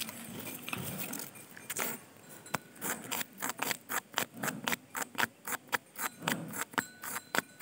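Hands handling a miniature model concrete mixer and its small metal pail. A rough scraping and rustling comes first, then from about two and a half seconds in a quick, irregular run of sharp light clicks and taps, several a second.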